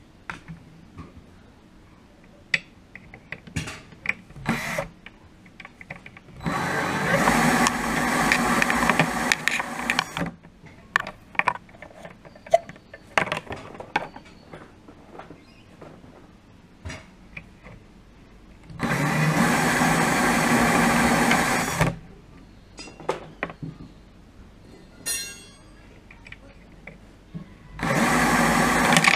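Cordless drill driving a wire-stripping machine, running in three bursts of about three seconds each as insulated copper cable is pulled through the blade and rollers. Scattered clicks and knocks of handling the wire and machine come between the bursts.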